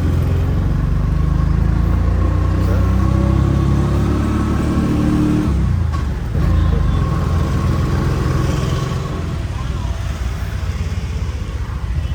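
Road vehicle's engine heard while riding in it, accelerating: its pitch climbs for about five seconds, drops sharply about six seconds in, then climbs again.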